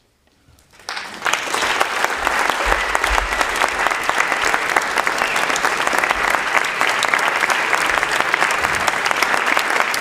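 Audience applauding, the clapping breaking out about a second in and then holding steady and dense.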